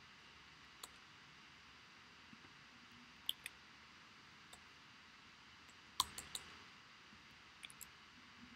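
A few sharp clicks over a faint steady hiss: one near the start, a quick pair about three seconds in, a louder cluster of several about six seconds in, and a short run near the end.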